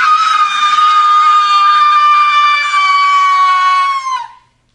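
A woman's voice holding one long, very high note, close to a scream, steady in pitch for about four seconds before dipping slightly and cutting off.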